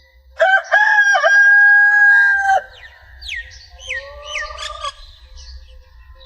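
A rooster crowing once, a long call that breaks twice near the start and is then held for about two seconds. Other birds follow with several short falling whistles.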